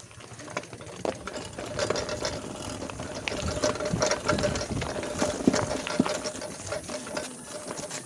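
Mountain bike rolling over a rocky dirt trail, heard close up through the handlebar-mounted phone: rapid, irregular ticking and rattling from the freewheel and the bike's parts jolting over the stones.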